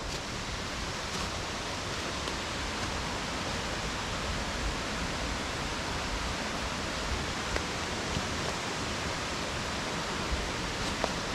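Mountain stream rushing in a steady, even wash, with a faint click near the end.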